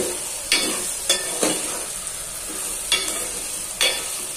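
Chopped vegetables sizzling steadily as they sauté in oil in an aluminium pot, while a steel ladle stirs them, scraping and knocking against the pot about six times.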